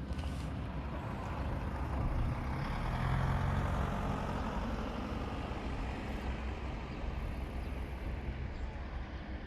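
Motor vehicle engine passing, louder about two to four seconds in and then easing off.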